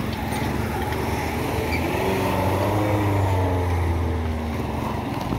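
A small car's engine running as it drives slowly past at close range on a rutted dirt road. It grows louder toward the middle and then eases off.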